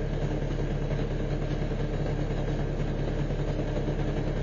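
Garbage truck engine idling steadily, heard from inside the cab as an even low hum.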